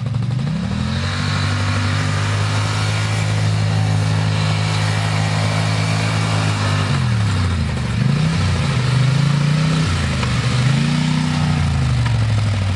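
ATV engine revving: its pitch climbs and holds steady for several seconds under throttle, then drops and rises again twice as the revs come off and go back on.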